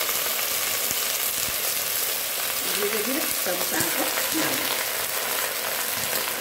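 Fresh lafa saag leaves sizzling in hot mustard oil in an aluminium pressure cooker, a steady hiss, with a metal spatula stirring them and knocking lightly against the pot a few times.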